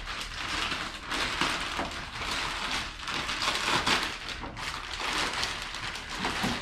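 Packaging rustling and crinkling as it is handled and pulled away from a boxed winch, an uneven scratchy noise that swells and fades throughout.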